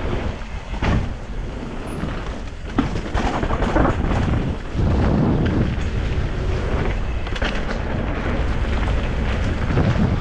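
Wind rumbling on the microphone of a camera riding with a downhill mountain bike, under the clatter of the bike over rough, wet trail, with sharp knocks from hits every second or two.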